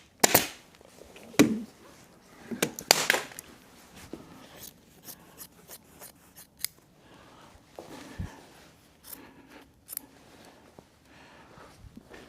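Scissors snipping upholstery fabric: a few loud sharp snips in the first three seconds, then lighter clicks and fabric handling.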